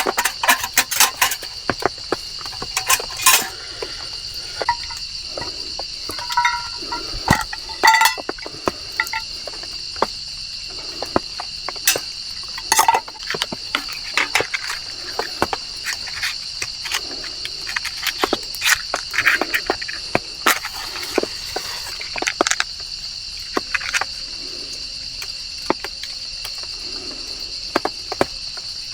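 A steady, high insect chorus from crickets or similar insects, with irregular sharp clicks and taps scattered over it.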